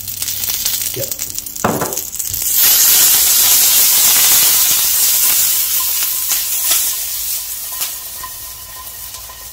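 Oil sizzling and crackling in a nonstick frying pan as batter-coated okra and washed curry leaves shallow-fry; the cook's own word for the crackle is 'kita kita', which he puts down to the curry leaves being wet from washing. The sizzle swells about two and a half seconds in as the pan is stirred and tossed, then fades gradually toward the end, with a few light clicks of the pan.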